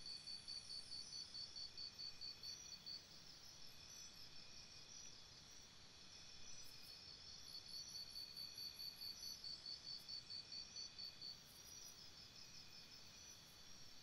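Faint chirping of insects: several high-pitched pulsed trills at about five pulses a second. The strongest trill stops about three seconds in and starts again around eight seconds.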